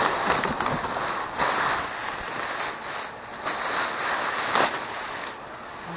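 Rustling, crinkling and handling noise from rummaging through trash in a dumpster, with a few sharper crackles about one and a half, three and a half and four and a half seconds in.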